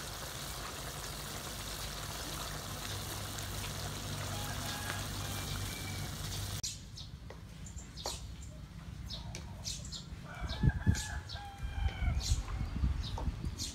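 Chicken pieces and ginger simmering in a wok with a steady hiss. About six and a half seconds in this gives way to chickens clucking, with a few clicks of a spatula stirring in the wok.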